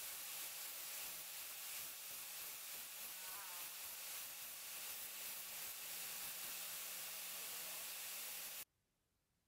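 Belt grinder grinding a steel bar pressed against its abrasive belt: a steady hiss of abrasive on metal that cuts off suddenly near the end.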